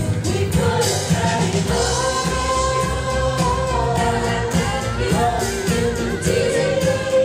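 Singing Christmas Tree choir singing a Christmas song over an amplified backing track with a steady beat, one voice holding a wavering note about five seconds in.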